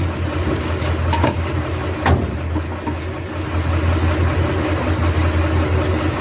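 Truck engine idling steadily, with a few short knocks about one, two and three seconds in.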